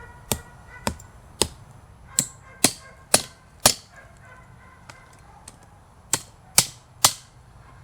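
Hammer blows on metal parts, sharp and ringing: seven strikes about half a second apart, a pause of about two seconds, then three more.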